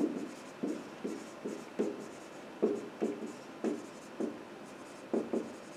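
Marker pen writing on a whiteboard: a run of short, separate strokes, roughly two a second, with brief pauses between letters.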